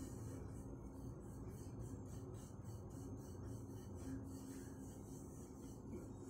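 Rolling pin rolling flour-dusted puran poli dough on a wooden board: faint, repeated rubbing strokes.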